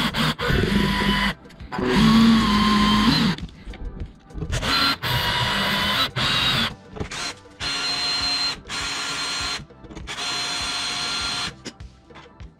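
Electric drill with a metal bit running in repeated short bursts, starting and stopping about six times with a whine, as it bores a hole into a rusted, stripped screw head so a Torx bit can be hammered in.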